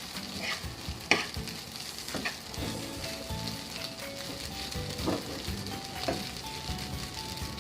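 Fried rice sizzling in oil in a pan, stirred with a spatula that scrapes and clicks against the pan a few times, the sharpest about a second in.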